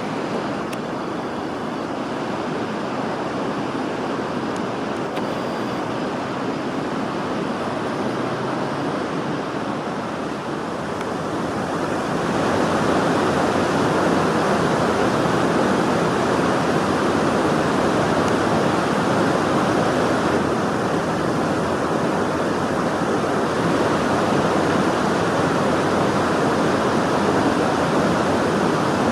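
River water rushing steadily, getting louder about twelve seconds in.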